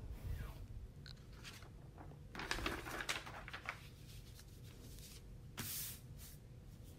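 Brown paper pattern piece and fabric rustling and brushing as the paper is laid on folded fabric and smoothed flat by hand, in a few soft bursts, the longest about two and a half seconds in.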